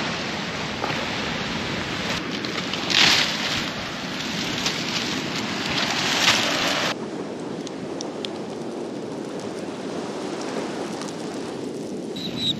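Dry palm fronds rustling and scraping as they are dragged over sand and piled into a heap, with louder crunching surges about three and six seconds in. After about seven seconds this gives way to a quieter, steady hiss of wind and surf.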